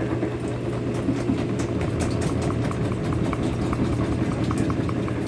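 Samsung front-loading washing machine in its high spin, the drum spinning with a steady hum. A faint, rapid light ticking runs through the middle. The machine is spinning with its feet braced in 2x4 blocks, the fix for its walking across the floor.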